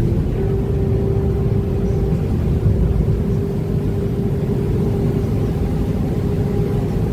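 OceanJet fast ferry's engines running at cruising speed: a steady low rumble with a constant hum, heard from the open outside deck.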